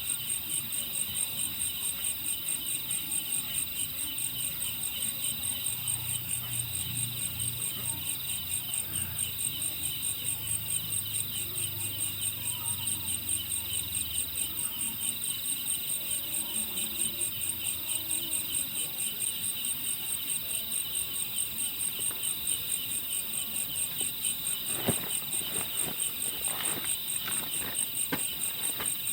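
A night-time-style insect chorus, crickets or similar, chirping steadily in rapid pulses at two high pitches. A faint low hum comes and goes in the middle, and a few soft knocks sound near the end.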